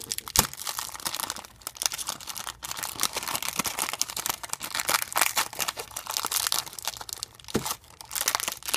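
Thin clear plastic wrap being torn and peeled off a new puzzle cube, crinkling and crackling irregularly throughout.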